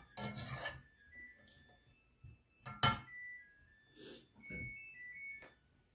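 A metal spoon scraping and clinking against a saucepan as food is served, with one sharp clink nearly three seconds in when the spoon is set down in the pan. Softer sounds of food being handled on the plate follow.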